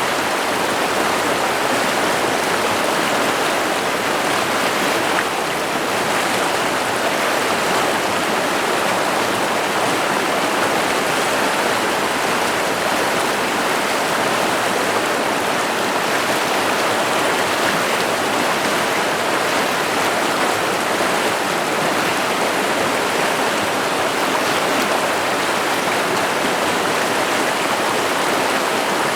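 River water running steadily over rocks, a continuous rushing babble.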